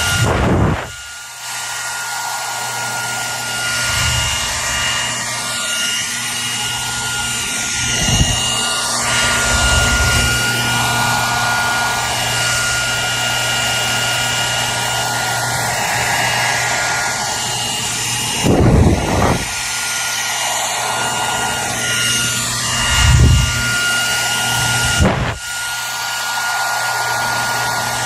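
Electric hair dryer running steadily: a constant rush of blown air over a high motor whine. There are a few short low thumps, about a second in, near 8 s, and around 18, 23 and 25 s.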